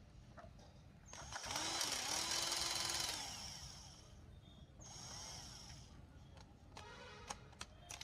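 A small electric motor spins up, runs steadily for about two seconds, then winds down. A second, shorter and fainter run comes about halfway through, and a brief buzz near the end.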